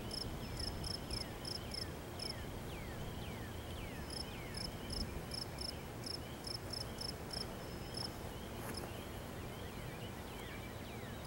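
A chorus of night insects. Short high chirps repeat about four times a second, pausing for a moment and starting again. Lower falling chirps repeat every second or so, over a steady low background noise.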